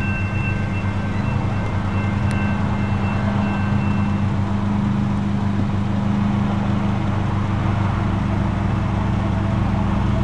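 Car engine idling, heard from inside the cabin as a steady low hum. A faint high ringing tone fades out about four seconds in.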